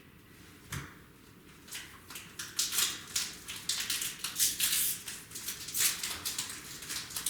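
Trading cards being handled: a rapid run of papery rustles, flicks and slides as cards are shuffled through the hands, starting a couple of seconds in.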